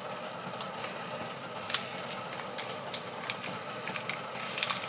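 Gloved hands handling paper tea-bag wrappers: a few short, soft crinkles and rustles over a steady background hiss.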